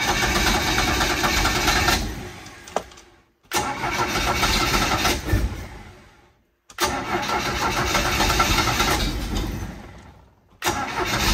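Small Bayliner's inboard boat engine, its two-barrel carburetor freshly rebuilt, cranked by the starter in three long bursts that each fade out, with a fourth beginning near the end, without catching and running. The owner puts this down to the new fuel filter still being empty, so fuel has not yet reached the engine.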